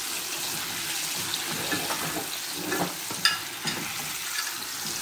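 Coated chicken pieces deep-frying in a pan of hot oil with a steady sizzle, while a slotted spatula stirs them, scraping and knocking against the pan; the sharpest knock comes a little after three seconds in.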